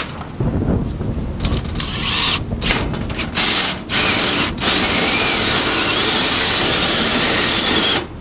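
Power drill running with a long bit to bore through material, in several short stop-start bursts and then one steady run of about three and a half seconds.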